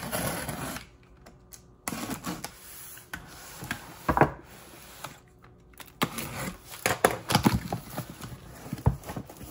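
Box cutter slitting the packing tape along a cardboard box's seam in short scraping strokes, then the cardboard flaps being pulled open and handled, with a run of clicks, knocks and rustles near the end.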